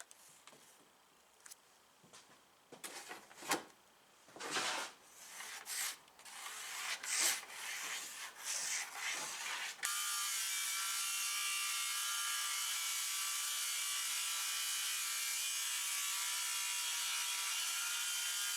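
Wood scraping and rubbing in irregular strokes. About ten seconds in, a woodworking power tool cuts in, running steadily at a constant pitch until it stops suddenly.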